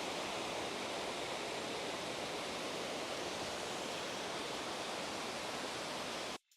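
Waterfall and river water rushing as a steady, even hiss, cutting off suddenly near the end.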